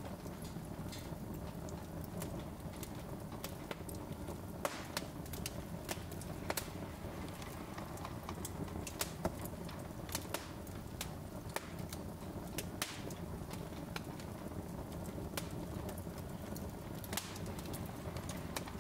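Wood fire burning in an open fireplace: irregular sharp crackles and pops over a steady low rumble.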